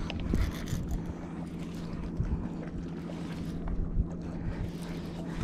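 Shimano Curado DC baitcasting reel being cranked to retrieve a lure, under wind buffeting the microphone and a steady low hum.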